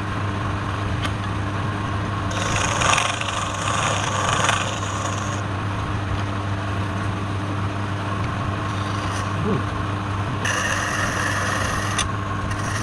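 Wood lathe running with a steady motor hum, while a turning tool scrapes against the spinning wood in two stretches, one about two seconds in and another near the end.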